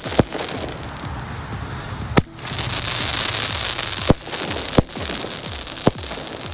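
Fogos Caruaru Estalada Luminosa 1.5-inch rockets bursting overhead: a dense crackling from the cracker trails, broken by five sharp bangs as the colour shells break.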